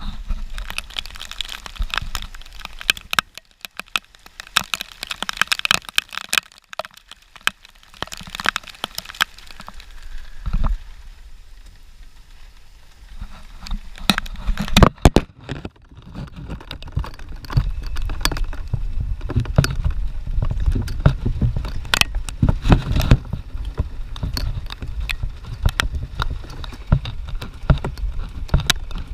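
Rain and strong wind on the microphone: many sharp crackles and clicks throughout, with a low rumble of wind buffeting that grows heavier from about halfway.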